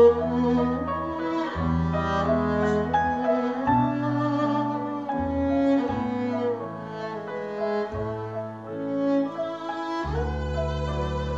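Live ensemble music: a violin playing a bowed melody over double bass and piano, with long held low notes underneath.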